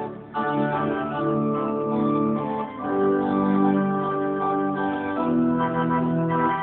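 Church pipe organ playing a hymn in sustained chords, with short breaks between phrases about a third of a second in and again near the middle.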